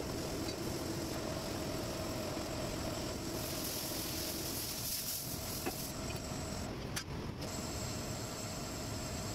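Metal lathe running steadily, its spindle and chuck turning a cast iron flange blank, with a steady hum and a thin high whine. A louder hiss comes in for about two seconds midway.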